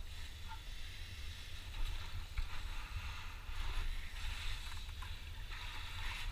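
A low steady rumble on the microphone, with faint scuffs and small clicks of rope and shoes against sandstone as a canyoneer lowers down the slot.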